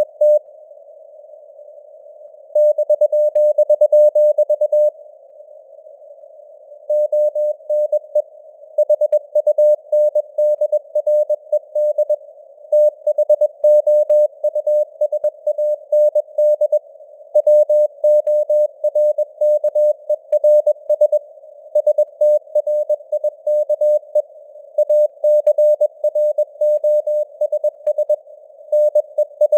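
Morse code sent at 21 words per minute: a single steady tone keyed on and off in quick dots and dashes, with short pauses between words. A faint hiss of simulated radio noise sits under the tone.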